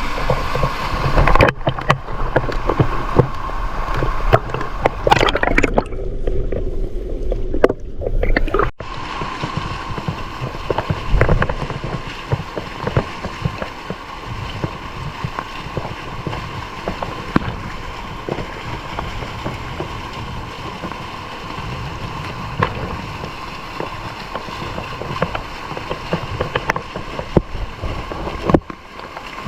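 Waterfall stream rushing and gurgling, with many small knocks and clicks through it. For a couple of seconds, about six seconds in, the sound turns dull and muffled.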